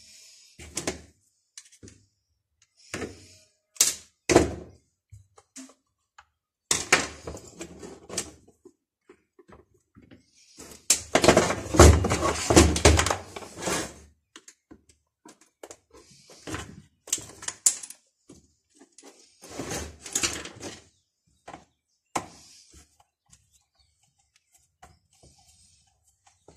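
Workshop handling noises from a chainsaw being worked on: irregular knocks and clicks of a screwdriver and the saw's plastic housing against a metal workbench. Near the middle there is a longer stretch of clattering and scraping as the saw is turned over on the bench.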